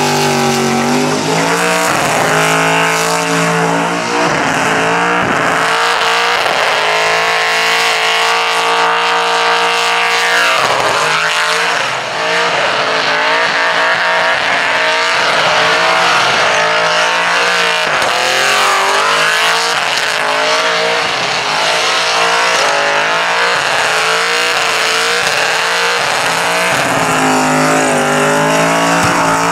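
5.7-litre LS1 V8 in a VP Commodore held at high revs through a burnout, the rear tyres spinning and squealing on the pad. The engine pitch holds steady for several seconds, then rises and falls as the throttle is worked.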